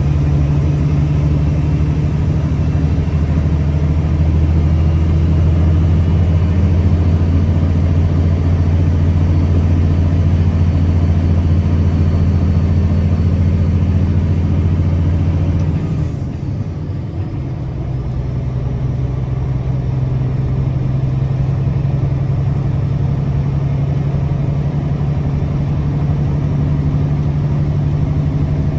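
Mack Granite dump truck's diesel engine running under way. A little past halfway the engine note changes and the sound dips briefly, then settles into a new steady note.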